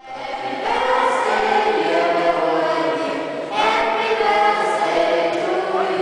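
Youth choir singing together in held, sustained notes, with a new phrase starting about three and a half seconds in.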